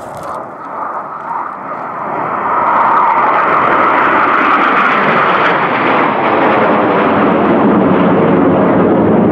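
A formation of Aermacchi MB-339 PAN jet trainers, each with a single Rolls-Royce Viper turbojet, flying over. The jet noise grows louder over the first three seconds and then holds loud and steady, its pitch sinking lower as the formation passes overhead.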